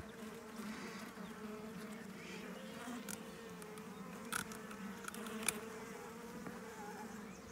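Honeybees from an opened nuc colony buzzing in a steady low hum, with a few faint clicks.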